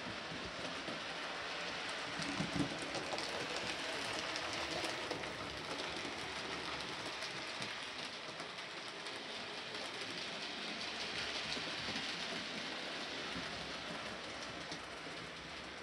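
Model railway locomotive, a model of BR Britannia Class No. 70013 'Oliver Cromwell', running along the layout track: a steady whirring hiss of motor and wheels with faint ticking over the rail joints. A brief knock about two and a half seconds in.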